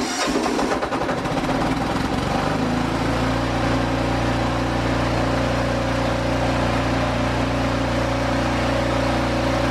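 Yanmar diesel generator engine running, uneven at first, then settling into a steady, even run about two and a half seconds in.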